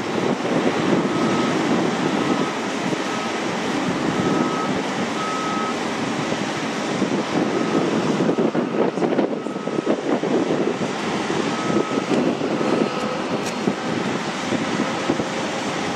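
Boeing 757 jet engines rumbling as the airliner climbs away after takeoff: a loud, steady, rough noise that flickers rapidly. Faint short high beeps recur about once a second.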